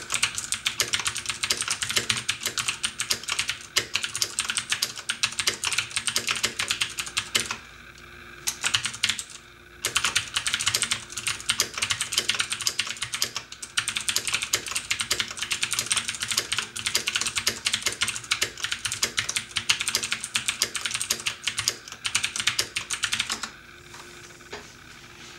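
Fast typing on a mechanical keyboard with Cherry MX switches, a dense run of key clicks that pauses for about two seconds partway through and stops shortly before the end. A steady air-conditioner hum runs underneath.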